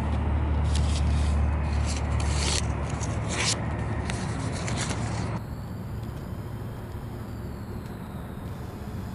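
A sheet of paper being folded and creased by hand: short crisp rustles and rubbing strokes over a steady low rumble. About five seconds in, the paper sounds stop and give way to a duller, steady background noise.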